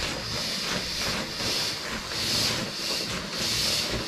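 Air hissing out of a Mont-bell inflatable sleeping mat's opened valve as the mat is pressed down to deflate it. The hiss swells and fades about once a second.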